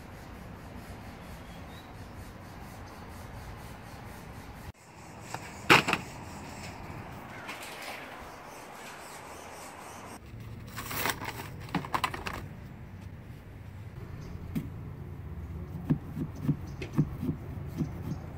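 Quiet outdoor background with a single knock and a crackly rustle, then a small plastic pumpkin-carving saw rasping into a pumpkin's rind in short strokes, about two a second, during the last few seconds.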